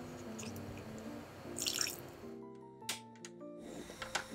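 Water trickling briefly into an enamel saucepan over soft background music, with two sharp clicks later on.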